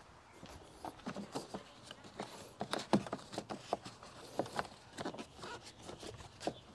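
A run of irregular clicks and taps as the rubber seal and plastic cowl trim over the engine bay are pressed back into place by gloved hands, starting about a second in.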